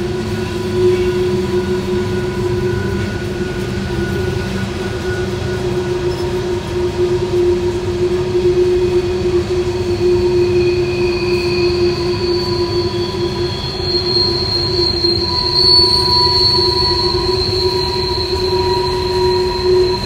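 Freight train rolling through a tight curve, its wheels squealing against the rails in several steady high tones over the low rumble of the passing cars. A higher squeal joins about two-thirds of the way through.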